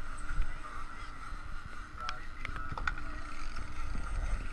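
Boat engine running steadily with wind rumbling on the microphone, and a few sharp clicks about halfway through.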